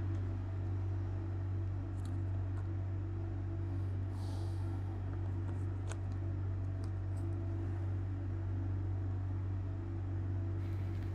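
A steady low hum, with a few faint light clicks and a brief soft hiss about halfway through.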